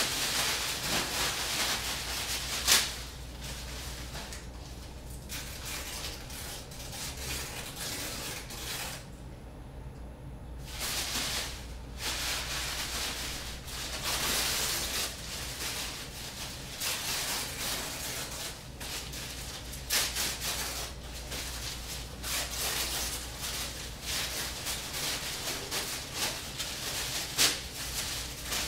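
Dry rustling and scraping noise, dense and uneven, with a few sharp clicks, over a steady low hum. The rustling drops out for about a second and a half some nine seconds in, then carries on.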